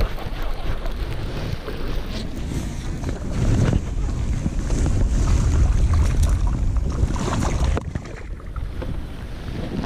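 Wind buffeting a chest-mounted action camera's microphone, a low rumble that is heaviest in the middle few seconds, with a jacket sleeve and glove scraping and rustling against the camera housing.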